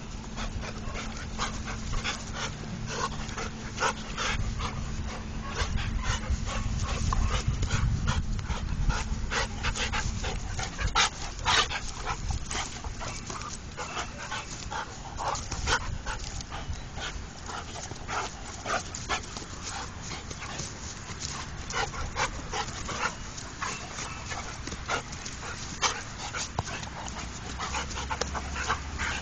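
Large dogs play-fighting, with their vocal sounds and many short, sharp sounds of the scuffle coming thick and fast.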